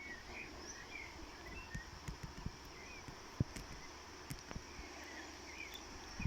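Small birds chirping in short repeated calls over a steady high-pitched insect hum, with scattered soft low thumps.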